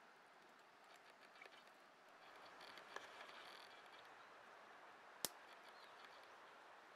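Near silence: faint ambient hiss, broken by one sharp click about five seconds in and a fainter tick about three seconds in.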